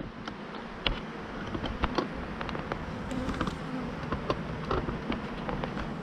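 Honey bee swarm buzzing: a steady hum of many flying bees, dotted with many short, sharp ticks.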